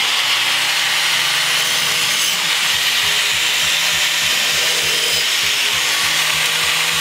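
Angle grinder running under load against a metal L bracket clamped in a vise, a steady high-pitched grinding noise.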